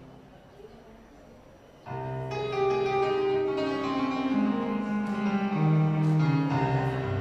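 The last sung chord of a choir dies away into a brief lull. About two seconds in, a keyboard starts the introduction to the next choral piece with a melody that steps downward.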